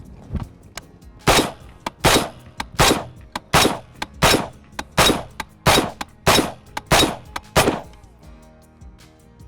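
Brownells BRN-10 Retro .308 semi-automatic rifle firing a string of about ten shots, roughly three every two seconds, each with a short echo, over background music.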